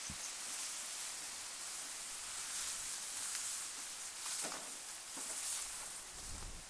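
Steady outdoor hiss with a few soft footsteps on a path a second or so apart in the second half.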